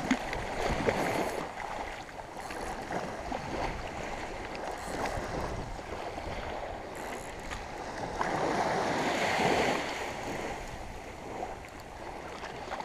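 Shallow surf washing and lapping, with some wind noise; the water noise grows louder for a couple of seconds about two-thirds of the way through.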